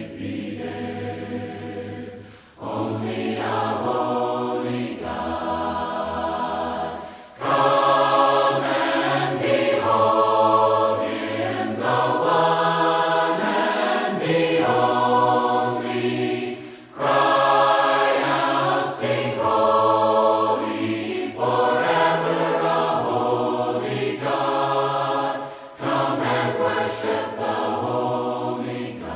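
A choir of mixed voices singing a worship song a cappella in close harmony, with long held chords and short breaks between phrases.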